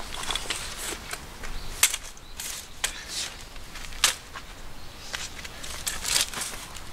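Folding camp chair being opened out and set down on gravel: several sharp clicks and knocks from its frame, with fabric rustling and scraping in between.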